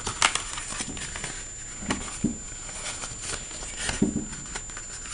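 Paper and a CD sleeve being handled: rustling with scattered light clicks and taps as the installation CD is taken out of its case.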